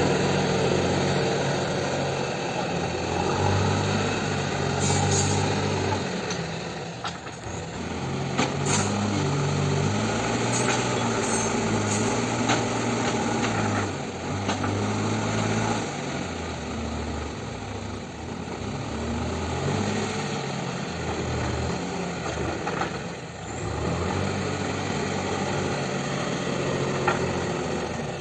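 JCB 3DX backhoe loader's diesel engine running under working load, its pitch rising and falling as the hydraulics are worked, with a few sharp knocks along the way.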